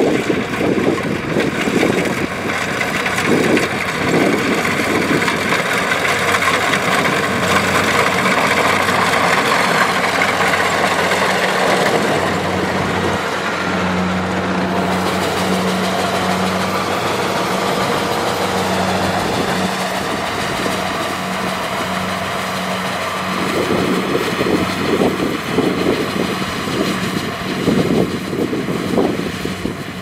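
Kubota DC70 rice combine harvester working under load: a steady diesel engine drone mixed with the rushing, rattling noise of its cutting header and threshing machinery.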